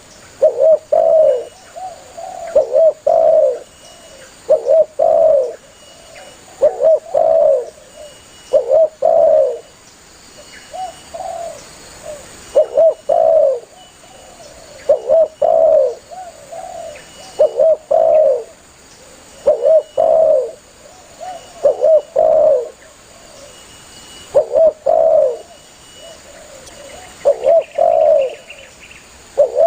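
Spotted dove (tekukur) cooing over and over, a short phrase of two or three coos about every two seconds: a male's call to other doves.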